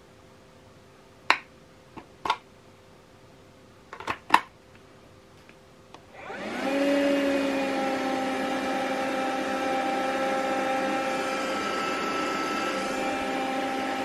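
A few sharp clicks, then the Kärcher WV 2 battery window vacuum's suction motor is switched on about six seconds in, spinning up with a rising whine and then running steadily.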